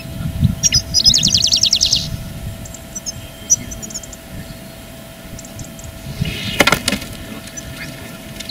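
Small songbirds chirping, with a fast high trill about a second in. About six and a half seconds in, a sudden sharp whoosh and slap as a ground clap net for birds springs shut over the bushes.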